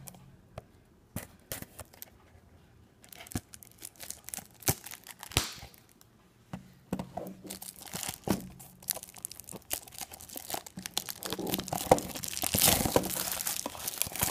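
Clear plastic shrink wrap on a cardboard blind box being picked at and torn open by fingers: sparse crackles at first, building into dense crinkling and tearing over the last few seconds, loudest near the end.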